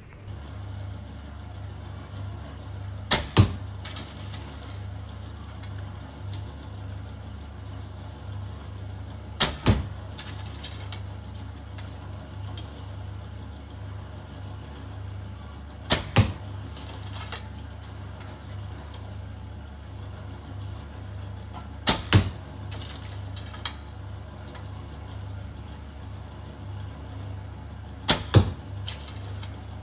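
Dacian-style recurve bow shot five times, about six seconds apart. Each shot is a double crack: the string released, then the arrow striking the foam target a split second later. A steady low hum runs underneath.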